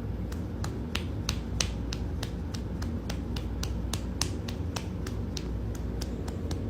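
A series of sharp clicks at a fairly even pace, about three a second, over a steady low hum.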